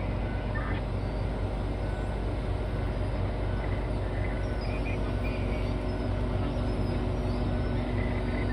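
Heavy diesel mining machinery running steadily as a Komatsu PC2000 excavator loads overburden into HD785 haul trucks, a continuous low rumble. A steady droning tone joins in about six seconds in.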